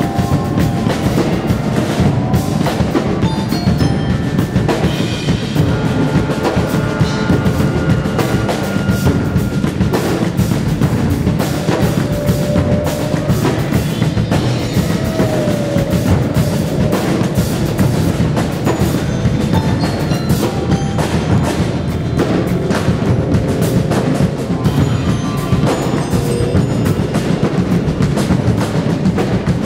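Live percussion ensemble music: mallet keyboards and drums play a dense, steady stream of fast strokes over a thick low rumble. A few held notes from other instruments drift in and out, one of them sliding briefly about halfway through.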